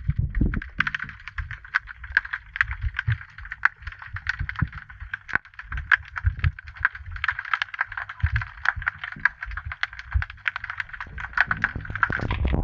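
Underwater sound picked up through a submerged camera housing: a dense, irregular crackle of many small clicks, with low uneven thumps and rumble underneath.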